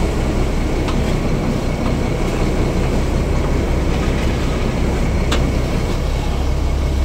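Fishing boat's engine running steadily underway: a constant low drone under a broad rushing noise, with a couple of faint knocks.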